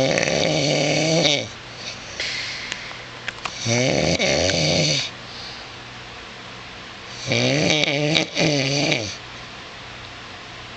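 A man snoring loudly in his sleep: three long snores a few seconds apart, each about a second and a half, with a softer hissing breath between the first two.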